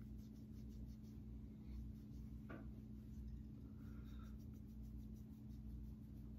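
Faint rubbing of a makeup wipe across the face, over a low steady hum.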